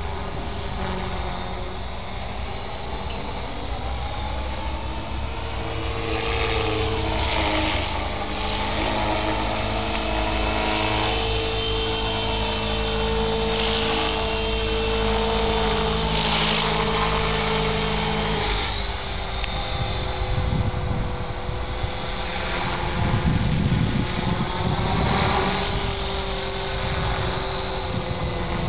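Whine of an EXI MA 450 electric RC helicopter's motor and rotor in fast flight, its pitch rising and falling as it turns and passes, with a sharp drop about two-thirds of the way through. A gusty low rumble joins in the last third.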